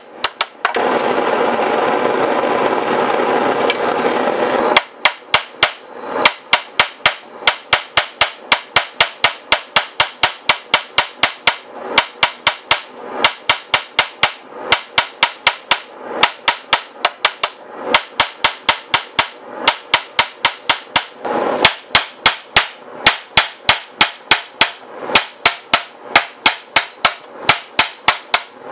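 Hand hammer striking a red-hot steel rod on a small steel anvil, forging the square point of an awl: rapid ringing blows, about three a second. Near the start a steady loud rushing noise runs for about four seconds, and it comes again briefly past the middle.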